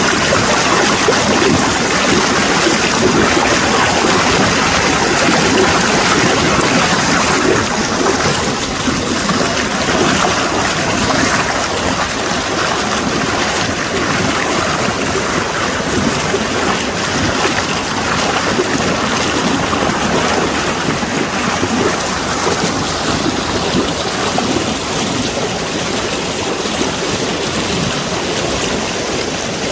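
A mountain valley stream rushing, a steady loud rush of water.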